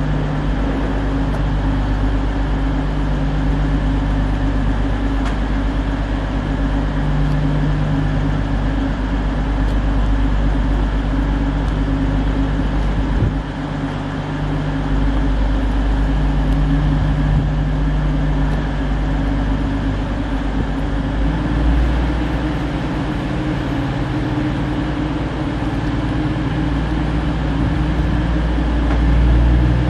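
Class 222 Meridian diesel multiple unit's underfloor Cummins diesel engines idling with a steady low hum while the train stands at the platform. The sound dips briefly about halfway through and grows louder near the end.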